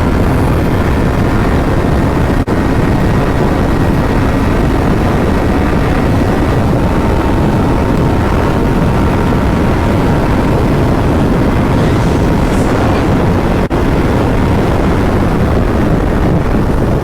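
Motorcycle being ridden at a steady speed: loud, steady wind rush on the microphone with the engine running underneath. The sound cuts out for an instant twice.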